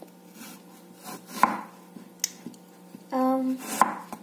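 Knife slicing through an apple and knocking on a wooden cutting board, a few sharp knocks with the loudest about one and a half seconds in. A person gives a short hum a little after three seconds in.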